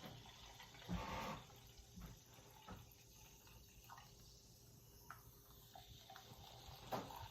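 Faint sound of Fresca soda being poured and fizzing, with a few soft knocks of cups or bottle; one louder knock about a second in.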